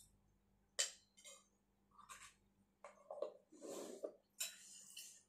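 Quiet tableside eating sounds: a few sharp clicks and clinks of a spoon, bowl and plastic food-container lid, with soft mouth sounds of chewing, over a faint steady hum.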